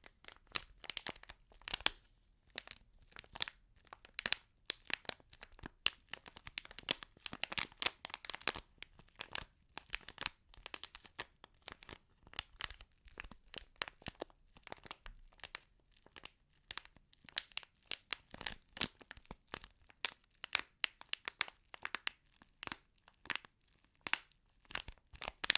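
ASMR crinkling and sticky sounds: a crinkly, sticky material handled and pulled apart, giving a dense stream of irregular quick crackles and crinkles.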